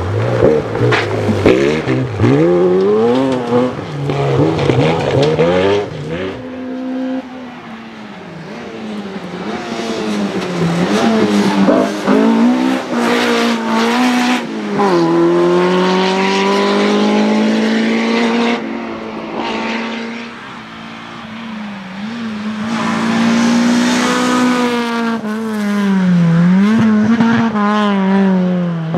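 Rally car engines revving hard, the pitch climbing and dropping back again and again through gear changes, as several cars pass one after another with abrupt cuts between them.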